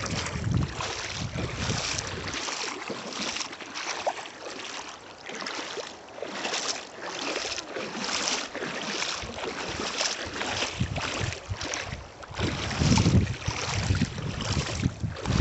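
Shallow river water washing over a gravel bed, a noisy rush that pulses about twice a second. Wind buffets the microphone with a low rumble at the start and again near the end.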